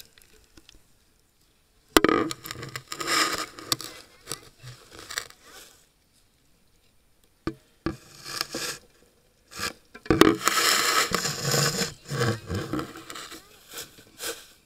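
Camera handling noise: scraping and rubbing in two long stretches, the first opening with a sharp knock about two seconds in and the second starting about ten seconds in, with a few short clicks between them.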